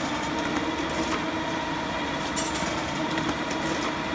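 Duplo 1060 collator tower running with a steady mechanical hum. Sheets are fed through with short swishes, the clearest about two and a half seconds in, as the machine collates a set into its delivery tray.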